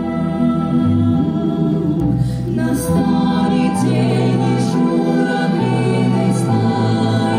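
Mixed male and female vocal ensemble singing slow, sustained chords in harmony, amplified through stage microphones and loudspeakers.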